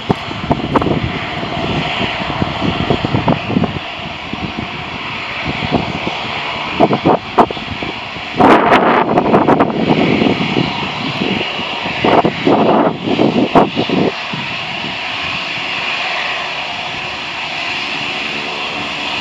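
Airbus A320's twin jet engines running at taxi power, a steady whine and hiss as the airliner taxis closer. Gusts of wind buffet the microphone several times in the first half.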